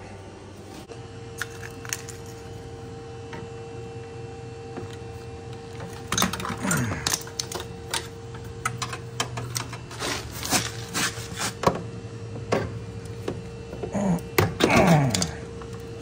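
Light clicks and metallic knocks from hands working on the copper refrigerant lines in a refrigerator's compressor compartment, scattered through the second half, over a steady hum.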